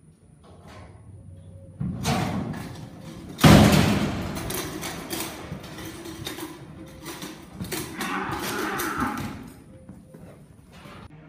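A bucking bull turned out of a metal chute, bucking and kicking on a dirt arena. A metal gate bangs about three and a half seconds in, the loudest sound here, then hooves thud and kick for several seconds before dying away near the end.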